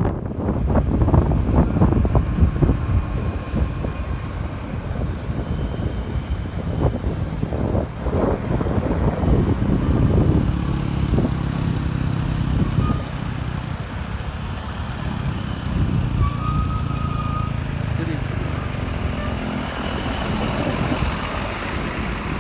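Roadside traffic noise, with a large vehicle's engine running as a steady low hum through the second half.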